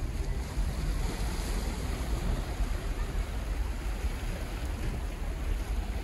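Small sea waves washing against a rocky shore, with wind rumbling steadily on the microphone.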